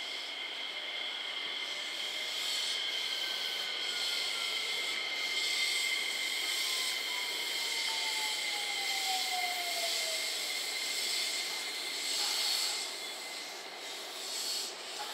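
JR West 227 series electric train pulling away, its VVVF inverter whining: two steady high tones and a third tone that slides steadily downward for about eight seconds, over a hissy wash of rolling-stock noise.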